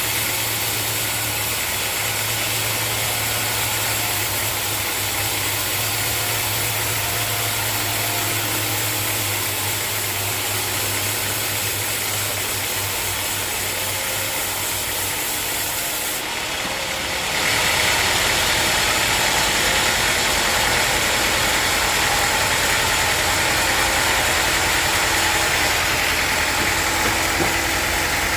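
Sawmill machinery running steadily with a low engine-like hum. About seventeen seconds in the sound changes abruptly and becomes slightly louder and harsher.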